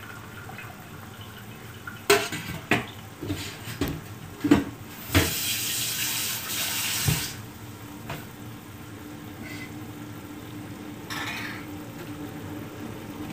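Metal pots and utensils knock and clatter several times. Then water runs into a kitchen sink for about two seconds, with another brief splash near the end.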